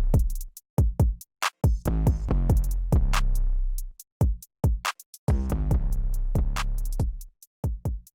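Electronic music with a drum-machine beat and deep bass notes, broken by short pauses.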